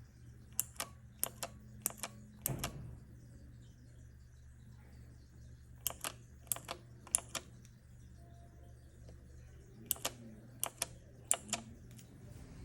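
Keyboard keycap keyring being pressed: sharp clicks, mostly in quick press-and-release pairs, in three bursts of three to four presses with pauses between. A duller knock comes near the end of the first burst.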